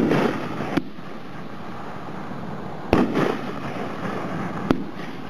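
Dominator Braggin Rights firework cake firing aerial shells. Each shell bursts with a sudden bang followed by a short hissing crackle, once at the start and again about three seconds in. Single sharp pops come about a second in and near the end.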